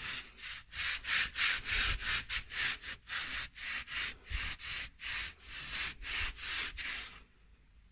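Cloth rag scrubbing a sooty fireplace surface in quick back-and-forth strokes, about three a second, stopping shortly before the end.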